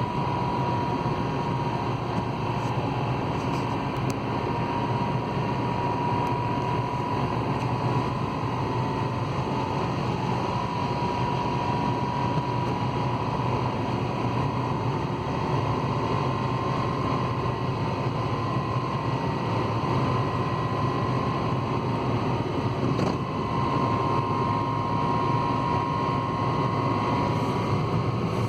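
A 2013 Honda Civic running with a steady drone and a thin high tone that wavers slightly in pitch. The owner records it because of a rattling noise.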